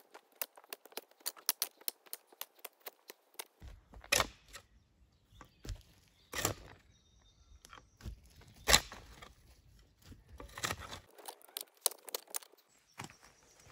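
Hand trail-building tools working dirt: a quick run of small clicks and scrapes, then four heavy strikes into the ground about two seconds apart.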